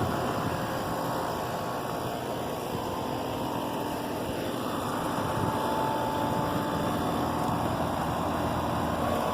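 Outdoor air conditioner condensing unit running: a steady rush of air with a low, even hum.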